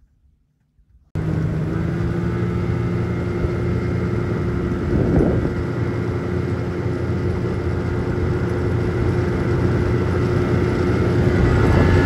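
Small boat's outboard motor running at a steady speed while the boat is underway, cutting in abruptly about a second in, with a brief swell of noise about five seconds in.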